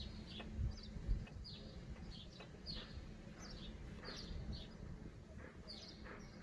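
Small birds chirping, many short high chirps that fall in pitch, over a low steady rumble, with two dull low thumps in the first second or so.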